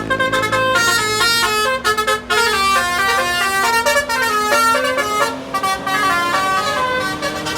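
A bus's telolet basuri multi-tone horn playing a tune in quick, stepping notes over a long held lower note.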